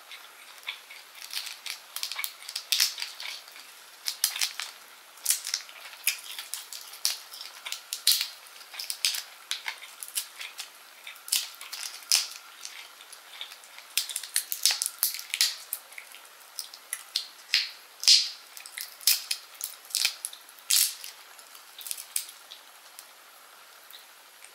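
Baked shrimp's shell crackling and snapping as it is peeled by hand: a long, irregular run of sharp little clicks that dies away a few seconds before the end.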